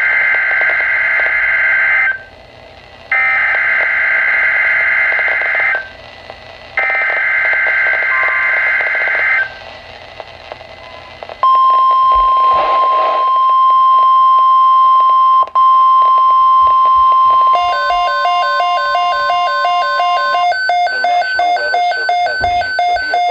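NOAA Weather Radio emergency alert: the SAME digital header sent three times as bursts of warbling data tones, then the steady 1050 Hz warning alarm tone starting about eleven seconds in. About seventeen seconds in, a rapidly alternating two-pitch electronic beeping joins over the tone and keeps going, typical of a weather radio receiver's own alert alarm.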